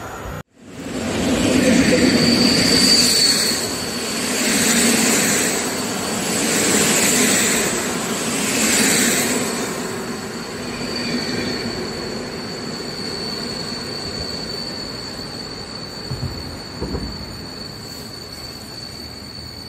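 Intercity passenger train passing close by at speed: the rush and rumble of the coaches swells and falls about every two seconds, then fades as the train draws away. A high steady whine lingers after the train has gone, and two brief low thumps come near the end.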